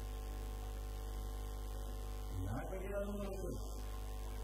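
Steady electrical mains hum with a stack of even overtones. About two and a half seconds in, a voice comes in briefly over it.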